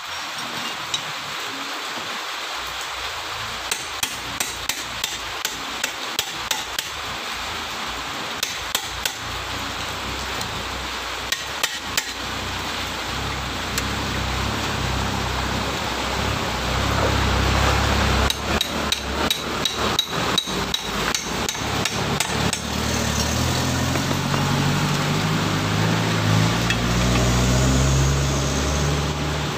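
Sharp metal taps and clicks from a hand tool working at a Honda CBR's rear disc brake caliper: single taps spaced out at first, then a quick run of them a little after the middle. A low rumble builds in the second half.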